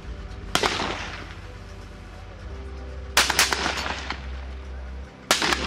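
Rifle shots on a shooting range: three sharp cracks about two and a half seconds apart, each trailing off in echo. The second crack has a few more reports close behind it.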